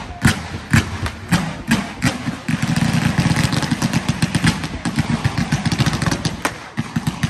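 Fireworks barrage going off: loud separate bangs about twice a second, then from about two and a half seconds in a dense, rapid run of shots and crackles, thinning back to separate bangs near the end.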